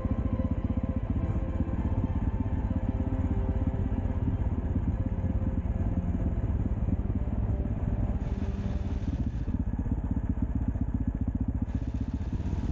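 Husqvarna TE630 single-cylinder motorcycle engine running steadily under way.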